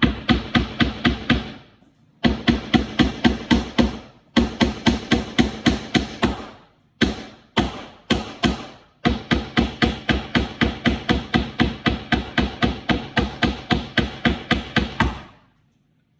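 Small hammer driving nails into the wooden panels of a birdhouse kit: quick blows about four to five a second, in several runs with short pauses, stopping about fifteen seconds in.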